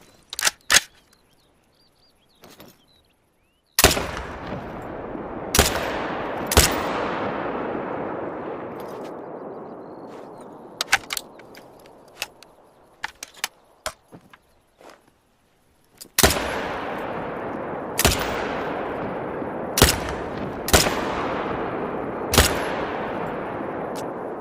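AR-15 rifle fired in single shots, eight in two strings: three shots a second or two apart, a pause, then five more. Each shot is a sharp crack followed by a long echo that dies away over several seconds, with a few small clicks in between the strings.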